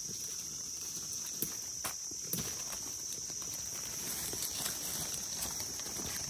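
Steady high-pitched drone of insects, with a few faint clicks and rustles of dry leaf litter as mushrooms are cut from the ground with a knife.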